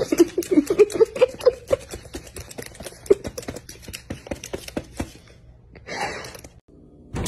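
A white-bellied caique hopping and stepping about on a laptop keyboard, its feet clattering the keys in a fast run of clicks that stops about five seconds in. A few short vocal sounds come over the first couple of seconds.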